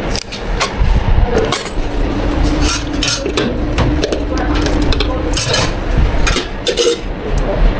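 Cups, utensils and containers clinking and knocking as drinks are made at a bubble-tea shop counter. A steady low hum runs underneath from about one and a half to five and a half seconds in.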